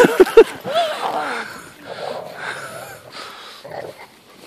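Dogs vocalizing in play: a quick run of short, high yips and snorts in the first second, then fainter grunts and breathing sounds.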